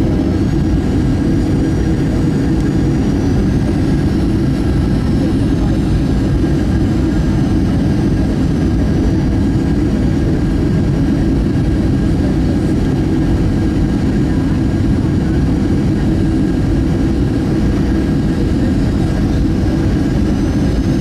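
Steady cabin noise inside a Boeing 737 airliner descending to land: a loud, unbroken low rumble of jet engines and airflow, with faint steady whining tones above it.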